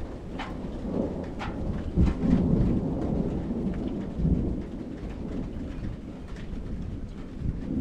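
Thunder rolling in a long low rumble that swells about two seconds in and again around four seconds, with rain falling and a few sharp raindrop taps in the first second or two.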